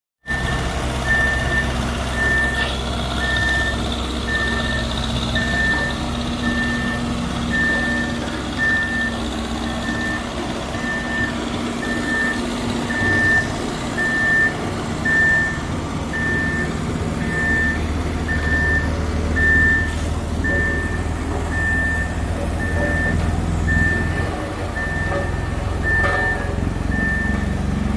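Reversing alarm of a heavy construction vehicle beeping steadily, a little more than once a second, over the low rumble of a diesel engine running.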